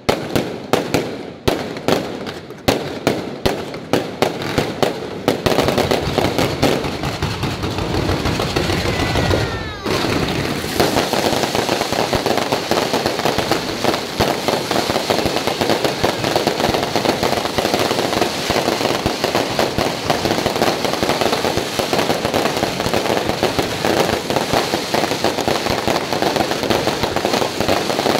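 Aerial fireworks display: a run of separate sharp bangs, then from about five seconds in a dense, unbroken barrage of bangs and crackling, the finale-style salvo. A short falling whistle cuts through about nine seconds in.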